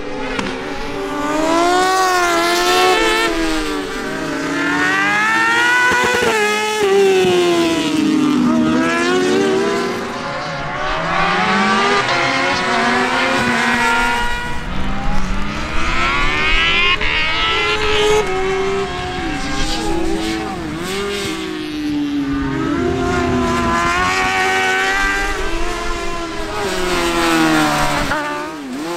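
Suzuki GSX-R 750 inline-four motorcycle engine in a kartcross buggy, driven hard and revving high. The pitch climbs through each gear and drops sharply again and again as the driver shifts and lifts off.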